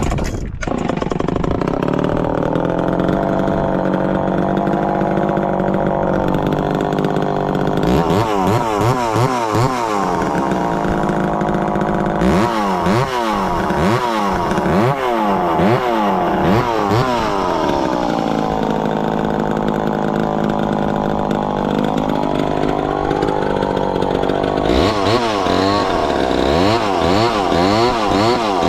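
Two-stroke chainsaw engine running at a steady speed, then twice revving rapidly up and down for several seconds at a time, the second time near the end.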